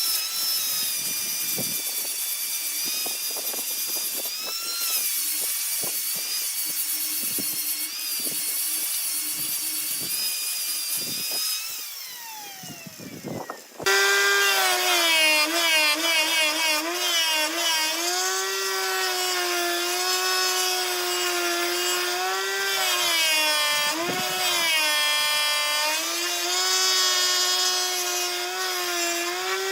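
Wood lathe running while a turning tool cuts the spinning wood, a steady whine over a cutting, scraping noise. About twelve seconds in the lathe winds down with a falling whine. About two seconds later it starts again suddenly and the cutting goes on, louder, its pitch wavering.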